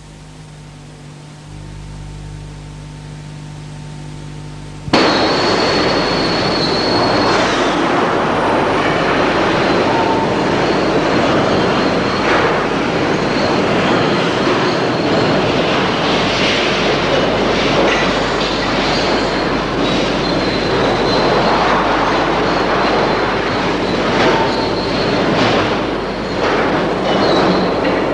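Faint steady hum, then about five seconds in a sudden loud rush of mine cars running on narrow-gauge rails: steel wheels squealing high and clanking over the track.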